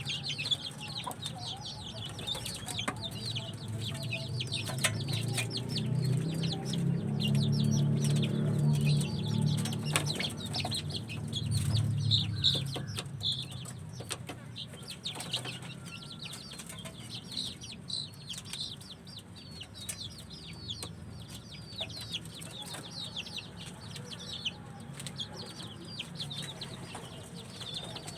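A flock of free-range village chickens clucking, with many short high peeps all through and occasional wing flaps and sharp clicks. A lower, fuller sound swells in and fades again over the middle stretch.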